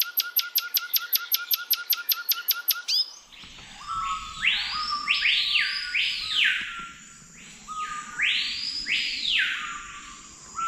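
A fast, even ticking for about the first three seconds. Then four or five loud whistled calls, each a short low note followed by a sweep that rises and falls, typical of a screaming piha's call.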